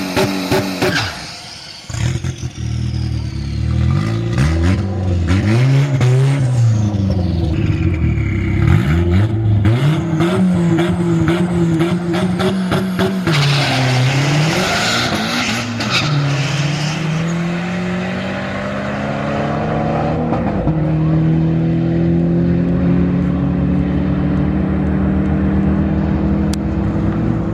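Chevrolet Cobalt SS's turbocharged engine revving up and dropping back several times, then climbing steadily in pitch over the last several seconds.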